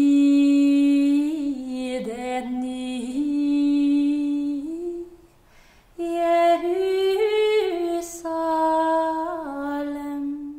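A woman singing solo and unaccompanied: a slow melody of long held notes in two phrases, with a pause of about a second for breath about halfway through.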